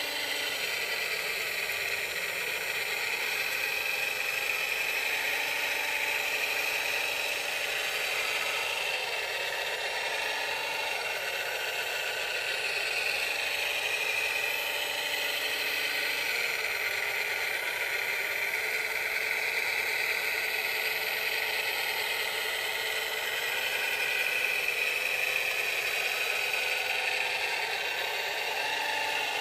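Radio-controlled scale model wheel loader working: a steady whir of its motors and gears, rising and falling in pitch as it drives and moves the bucket, with a low hum that cuts in and out several times.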